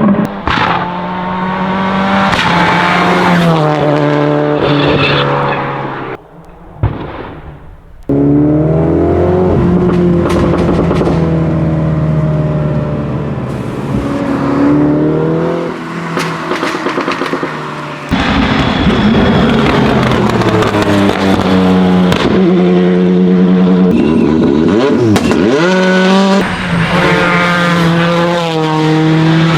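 Race and rally car engines revving hard up and down, with sharp exhaust pops and bangs from backfire and anti-lag. The sound jumps between several different cars. A quieter moment about six to seven seconds in is broken by one loud bang.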